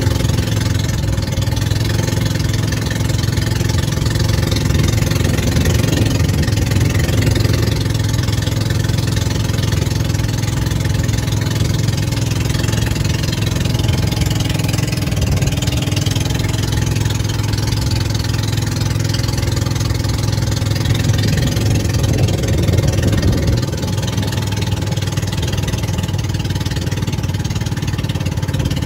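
Suzuki Skydrive 125 scooter's single-cylinder four-stroke engine running steadily while riding, with steady road and wind noise over it.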